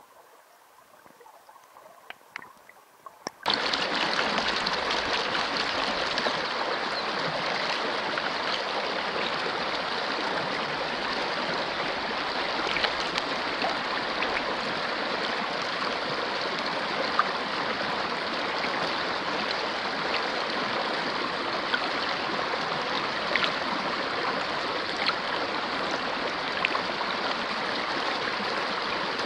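Shallow rocky river flowing. The sound is faint and muffled at first, with a few small clicks. About three and a half seconds in it jumps suddenly to a steady rush of running water, with occasional small clicks.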